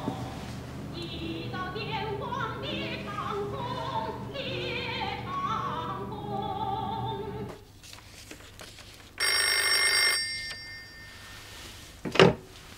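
Music with a wavering singing voice, which stops about halfway through. After a short lull a desk telephone's bell rings once for about a second, and near the end there is a sharp loud clack as the handset is picked up.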